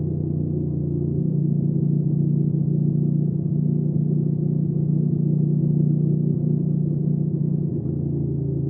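Hyosung GV300S Aquila 300's V-twin engine running at a steady speed under way. It gets a little louder about a second in and eases back near the end.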